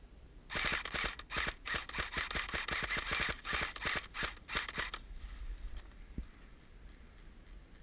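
Airsoft gun firing rapidly in bursts of sharp clicks, with a few short breaks, stopping about five seconds in.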